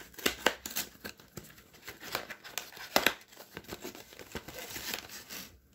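Packaging being torn open and crinkled by hand: a busy run of sharp crackles and rips that stops shortly before the end.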